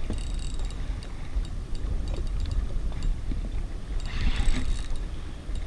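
Wind buffeting the microphone as a steady low rumble, over choppy water slapping and washing around a jet ski.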